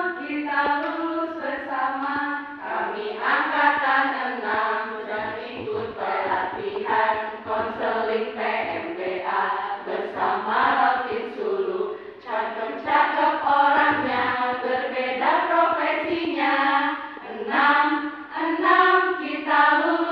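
A group of voices, mostly women's, singing a yel-yel, an Indonesian group cheer song, together and with no pause.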